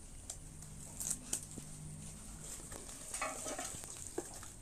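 Faint scrapes and a few light clicks of hands handling a clay figure, setting its head onto the mud-plastered body.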